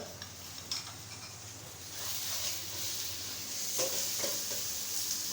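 Onions and green onions sizzling in oil in a stir-fry pan. The sizzle grows louder about two seconds in, and a few soft scrapes of stirring come near the end.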